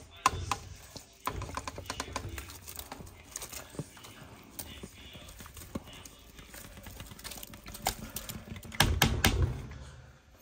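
Light clicks and taps of a plastic bowl and utensil as pounded cassava leaves are tipped and scraped into a pot of broth, over a low rumble. A louder cluster of knocks comes about nine seconds in.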